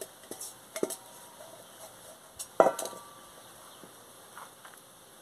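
A metal bowl knocking as a load of soil is tipped out of it into a plastic basin: a few light knocks, then one sharp clank that rings briefly about two and a half seconds in.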